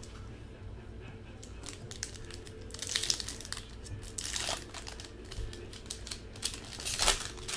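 Foil wrapper of a 2014 Bowman Sterling card pack being crinkled and torn open by hand, in short bursts about three seconds in, at four and a half seconds, and near the end, with light rustles and clicks between them, over a faint steady hum.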